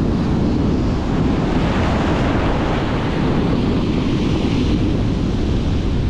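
Ocean surf breaking and foam washing up the sand in a steady rushing hiss, with wind buffeting the microphone as a low rumble underneath; the hiss of the wash swells about halfway through.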